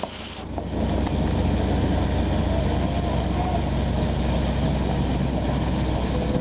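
Steady low mechanical rumble with an engine-like hum, growing louder about a second in.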